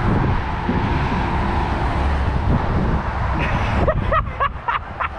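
Wind rushing over the microphone along with traffic rumble while riding an electric scooter. About three and a half seconds in, the rushing eases and a voice calls out briefly.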